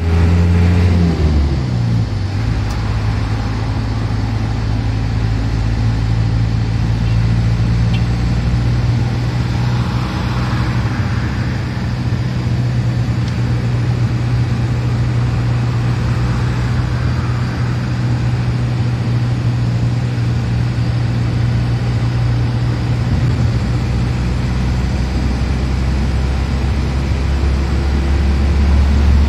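Car engine hum and road noise heard from inside the cabin while driving. The engine note falls about a second in, a rush of louder noise swells past around ten seconds and again around sixteen, and the hum shifts lower near the end.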